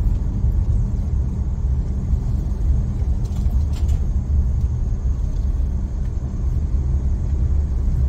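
Steady low rumble of a car's engine and tyres, heard from inside the cabin while driving slowly on a narrow, rough farm road, with a few faint clicks about halfway through.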